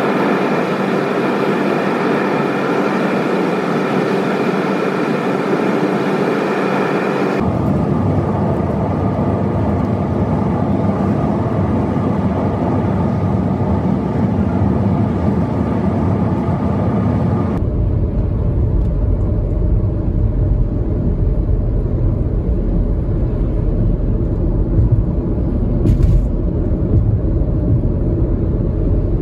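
2001 Audi A4 2.8 Quattro driving at road speed, heard from inside the cabin: steady tyre, road and engine noise. The noise changes abruptly twice, turning to a deeper rumble about two-thirds of the way through.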